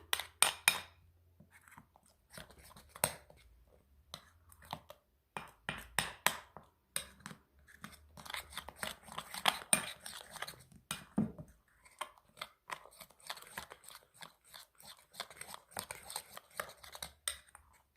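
A spoon stirring and scraping a thick paste of black soap and paprika in a small bowl, with irregular clicks and taps of the spoon against the bowl.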